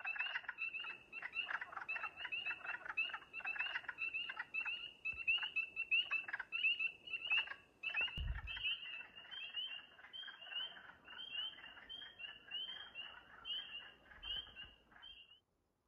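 Chorus of frogs calling from a small pond in early spring, many short gargling croaks overlapping, then a steady run of short high notes about twice a second that stops shortly before the end. A single low thump about eight seconds in.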